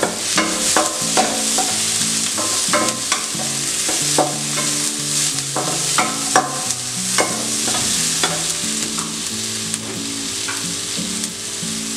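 Chopped red and yellow capsicum, onion, garlic and cashews sizzling in hot oil in a nonstick kadai as a wooden spatula stirs them. There is a steady sizzle, with frequent short scrapes and taps of the wooden spatula on the pan, fewer near the end.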